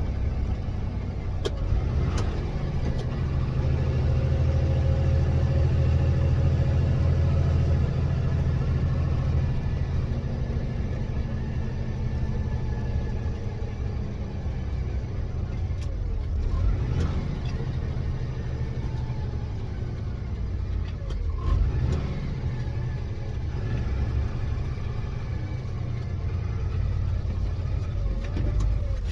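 5.9 Cummins turbo-diesel in a Ford F650 medium-duty truck running under load while driving, heard from inside the cab. The engine note holds steady for several seconds, then drops and changes a few times as the truck is worked through the gears of its manual transmission.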